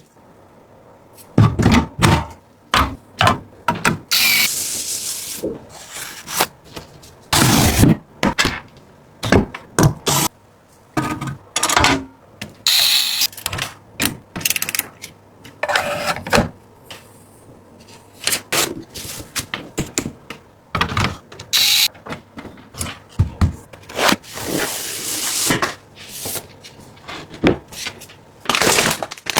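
Computer parts being handled and fitted together during a PC build: irregular clicks and knocks of plastic and metal parts, with several short bursts of rustling or scraping.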